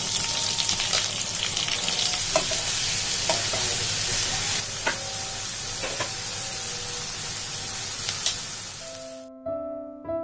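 Sliced onions sizzling as they fry in hot oil in a wok, with a few sharp clicks as they are stirred. The sizzling cuts off about nine seconds in and piano music begins.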